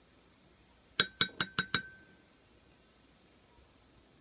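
Five quick clinks of a plastic spoon tapping against a porcelain bowl, about a second in, with the bowl ringing briefly after the last tap.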